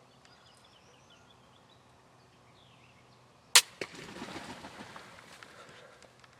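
Ballista Bat pistol crossbow firing: one sharp crack, a second smaller smack a moment later, then a couple of seconds of scuffling and flapping from the hit turkey. Small birds chirp faintly before the shot.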